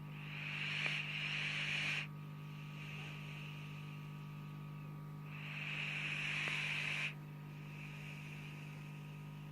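Doberman snoring in its sleep: a long, hissing, whistly breath that swells and cuts off sharply, then a fainter breath, the cycle repeating about every five seconds, twice.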